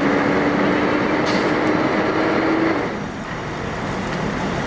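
Fire apparatus diesel engines and pumps running with a steady rumble and a held hum. The hum stops a little under three seconds in, and the noise drops slightly.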